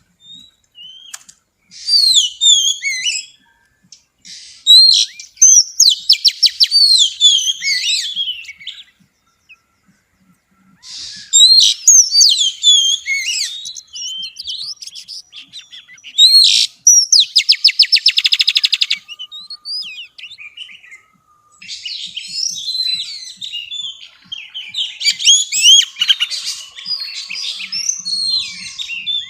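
Female oriental magpie-robin singing in long bouts of varied clear whistles, slurred sweeps and rapid trills, with short pauses between them. This is the kind of song used to rouse male birds to sing.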